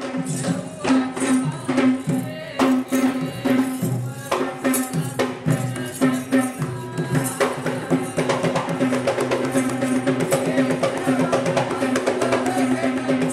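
Traditional Kandyan drums beaten in a fast, driving rhythm, with a steady held tone sounding underneath. The strikes grow denser about two thirds of the way through.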